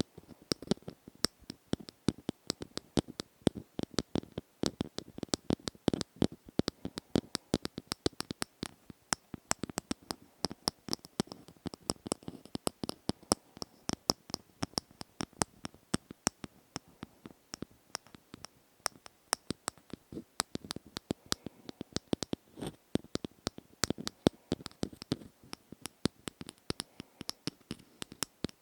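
ASMR tapping close to the microphone: rapid, uneven taps and clicks, several a second, some louder than others.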